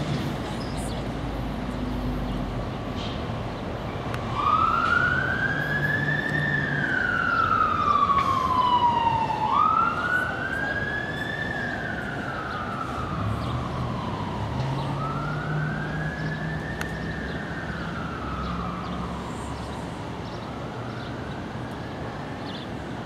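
An emergency-vehicle siren wailing, its pitch slowly rising and falling four times, about five seconds to each cycle. It is loudest in the first two wails and then fades away, over a low engine drone.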